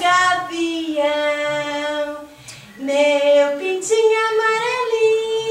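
A woman singing unaccompanied, in long held notes that step up and down in pitch, with a brief pause about two and a half seconds in.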